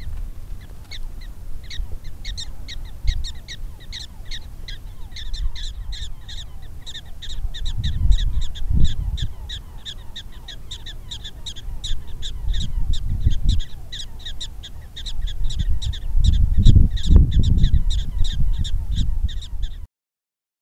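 Prairie dog giving a long series of sharp, chirping alarm barks, about three a second, at a hawk standing near its burrow. Low gusts of wind rumble on the microphone beneath the calls, and everything cuts off just before the end.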